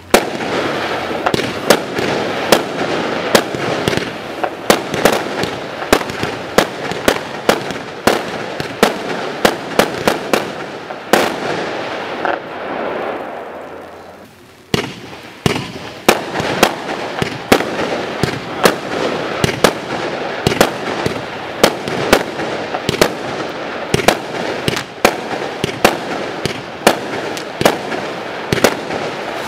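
Zeus Fireworks 'Trojan Spirit' compound of four 25 mm, 25-shot firework cakes firing in quick succession: sharp bangs about two a second over a continuous crackle from the blink stars. The firing dies down about twelve seconds in and picks up again at about fifteen seconds.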